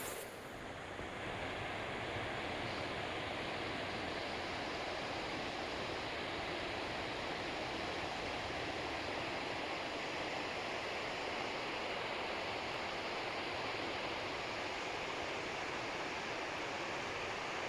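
Steady rush of fast-flowing creek water, swollen by flash flooding.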